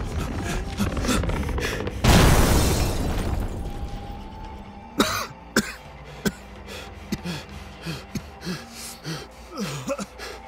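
Sound-design crash of a bulldozer falling out of trees: crackling and snapping, then a loud crash about two seconds in that dies away over a couple of seconds. Scattered knocks follow, with a thin steady ringing tone and coughing.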